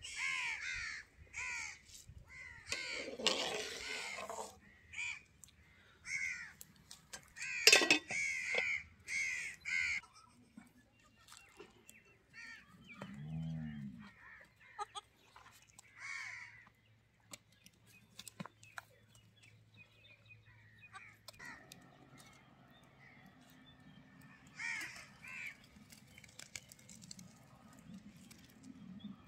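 Crows cawing over and over, several calls close together through the first ten seconds or so, the loudest about eight seconds in. One short low bleat about thirteen seconds in, then quieter scattered sounds.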